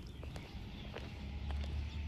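Outdoor ambience: a steady low rumble with scattered faint clicks and taps.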